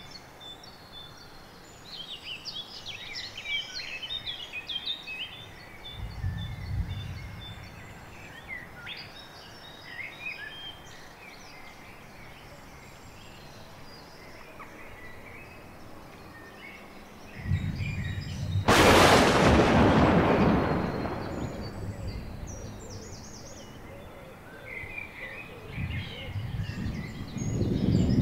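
Several birds singing, with short chirps and trills over a steady outdoor hiss. About two-thirds of the way in, a low rumble rises into a sudden loud crash that fades over a few seconds, the loudest sound here; brief low rumbles also come about a quarter of the way in and near the end.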